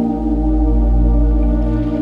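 Slow ambient background music: held keyboard-like chords over a deep bass, the chord changing near the end.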